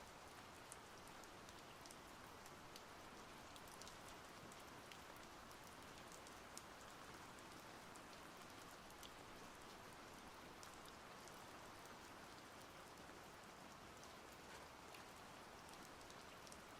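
Faint, steady splashing of water, with many small scattered drip-like ticks.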